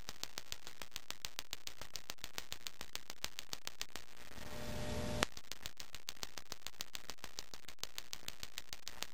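Electronic gas grill igniter sparking, a rapid, even train of sharp snapping clicks, about six a second. About four seconds in the clicking stops for roughly a second while a low hum comes in. Then one louder snap, and the clicking starts again.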